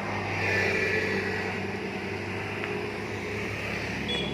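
A vehicle engine running steadily while under way, with a steady low hum and road noise.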